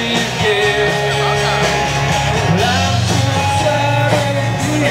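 Rock music with a singing voice over a steady bass line, playing loudly and continuously.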